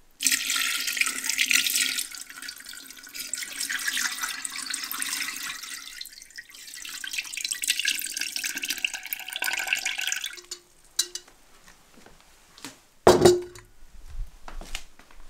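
Sauerkraut brine pouring out of a glass jar into a stoneware fermenting crock, splashing onto the liquid and the weighting stones for about ten seconds before it stops. A single loud knock follows a few seconds later.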